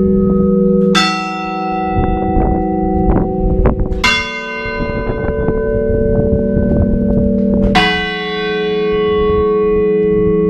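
Large bronze church bells tolling a clamor, the slow death knell: three single strokes about three to four seconds apart. Each stroke rings on long, so its hum overlaps the next.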